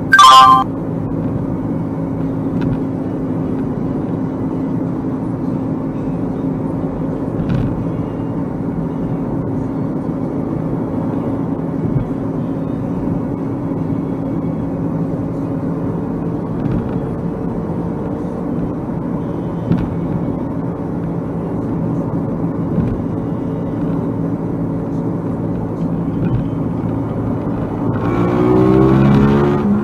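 Steady in-car drone of engine and road noise at highway speed, opening with a brief loud horn honk. About 28 seconds in, the engine note rises as the car accelerates.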